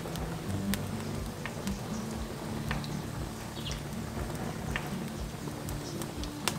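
Hardwood logs burning in an open braai fire, crackling with scattered sharp pops, the loudest pop just before the end, over a steady low hum.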